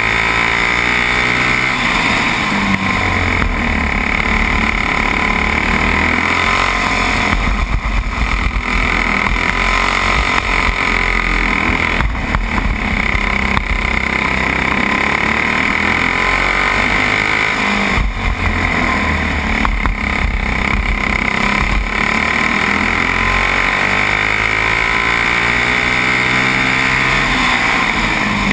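Racing kart engine at race pace heard from the seat, its pitch climbing on the straights and falling off each time the driver lifts for a corner, several times.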